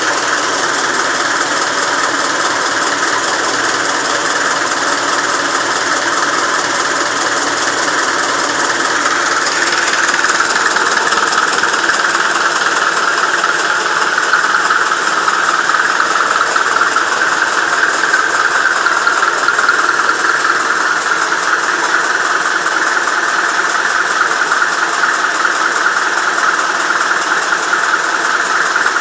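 Russian tractor's diesel engine running steadily after a restart, getting a little louder about ten seconds in.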